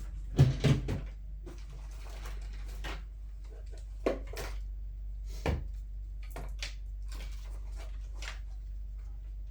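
Handling noise from small parts and wires being picked up and set down on a work surface: a few scattered knocks and rustles, the loudest a double knock about half a second in, over a steady low hum.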